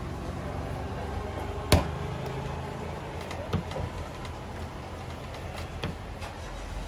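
Coconut roti dough being put down and pressed out flat by hand on a metal plate: one sharp knock about two seconds in, then a couple of softer knocks and taps, over a steady low rumble.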